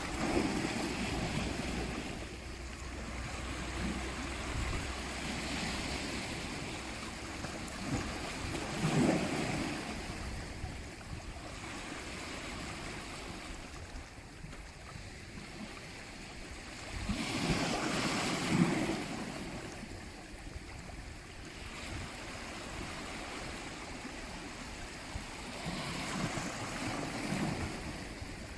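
Sea waves breaking and washing on a shore, surging and ebbing about every eight or nine seconds, with quieter lulls between the surges.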